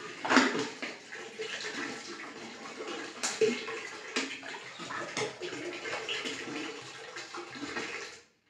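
Liquid culture pouring from an upturned plastic bottle into a drum of water, a continuous splashing pour with irregular splashes. It stops abruptly near the end as the bottle empties.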